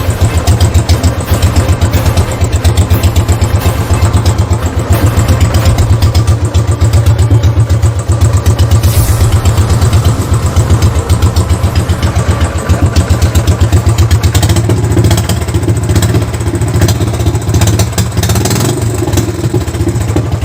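Royal Enfield Standard 500's single-cylinder four-stroke engine running near idle with a steady, even thump.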